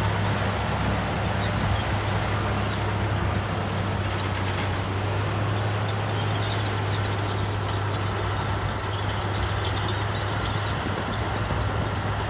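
Diesel engine of heavy earthmoving machinery running steadily, a constant low drone with faint clinks above it.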